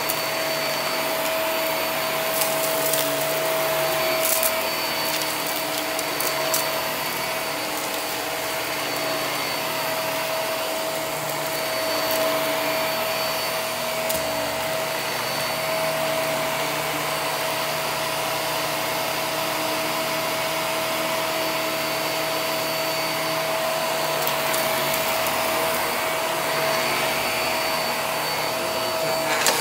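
Upright vacuum cleaner running steadily over carpet, its motor holding a steady whine under the rush of suction, with a few sharp clicks in the first several seconds.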